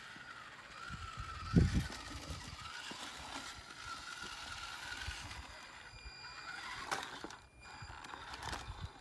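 Small electric motor and gearbox of a radio-controlled rock crawler whining under load as it climbs rock, the pitch wavering with the throttle. A low thump comes about one and a half seconds in.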